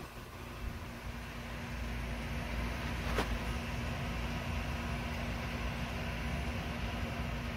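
Steady low background rumble with a steady hum, and a single sharp click about three seconds in.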